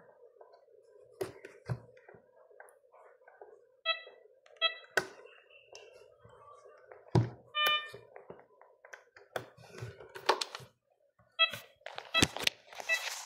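Mindray T5 patient monitor giving short electronic beeps, singly, in pairs and in quick runs, among sharp knocks and clicks.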